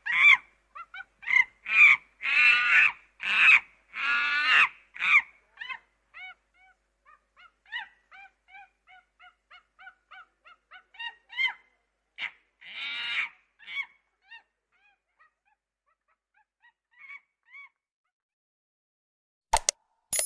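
Monkey calls: a quick series of loud, pitched calls in the first five seconds, trailing off into soft short chirps, with another loud call in the middle and a few faint ones after. A couple of sharp clicks come right at the end.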